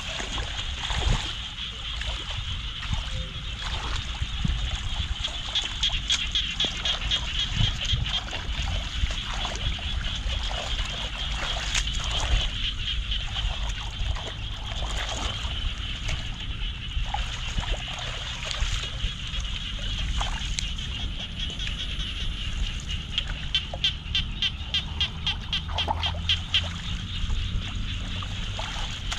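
Muddy floodwater trickling and splashing as hands work in the shallow water and handle a mesh net. Behind it, a steady high-pitched trilling of night insects runs throughout.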